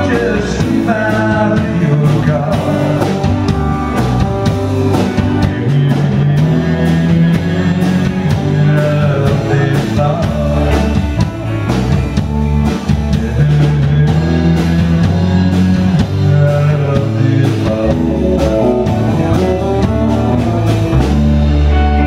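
Live rock band playing a country-rock song on electric guitars and drum kit, amplified through the bar's PA.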